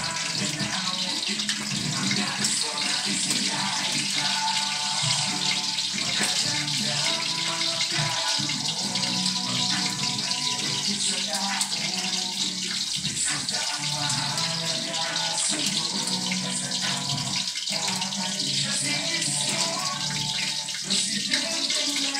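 Steady sizzling of oil and food frying in a wok on a lit gas burner.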